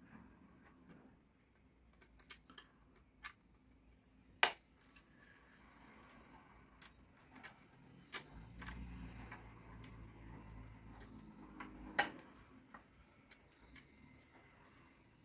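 Faint metallic clicks and scrapes of a lock pick and tension tool working the pins of a nine-pin cross-key (cruciform) garage lock, with two sharper clicks about four and a half and twelve seconds in. A low rumble of hand handling runs from about eight to twelve seconds in.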